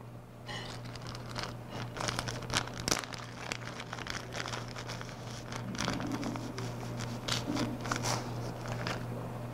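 Irregular crinkling and crackling as fly-tying materials (dubbing and its packet) are handled close to the microphone at the vise, in clusters of small quick crackles. A low steady hum runs underneath.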